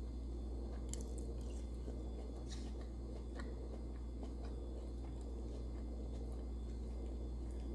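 Soft wet clicks and squishes of fingers picking apart cooked fish, with faint chewing, over a steady low hum.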